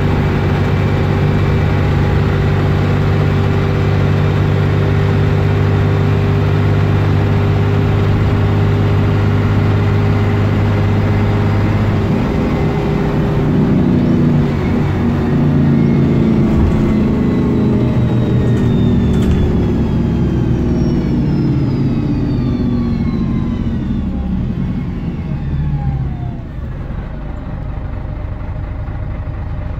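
A Scania N113DRB double-decker bus's engine and driveline heard from inside the bus. It runs steadily at cruising speed, then the sound changes about twelve seconds in as the bus slows. Over the following seconds a whine falls steadily in pitch.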